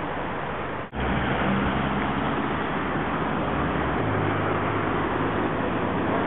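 Steady outdoor traffic rumble with a low engine hum that shifts now and then. The sound cuts out briefly about a second in.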